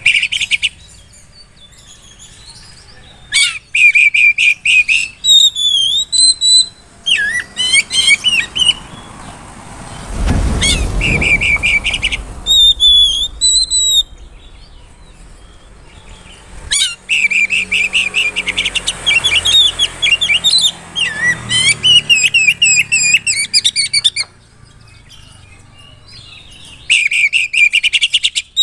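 Oriental magpie-robin in loud, full song, showing off its varied, mimicked phrases. The song comes in bursts of a few seconds with short pauses between them, mixing fast runs of repeated notes with whistled glides. A low rumble sounds under the song about ten seconds in.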